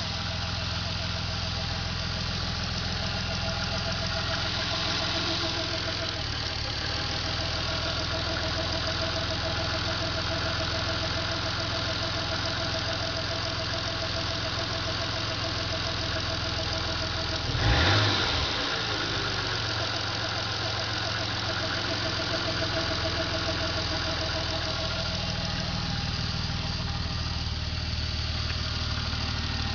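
Toyota 2JZ-GTE twin-turbo inline-six idling, with the pulsating chirp from the right valve cover near the PCV valve whose cause the owner cannot identify. About two-thirds of the way through, a short throttle blip raises the revs; the engine then drops back to idle.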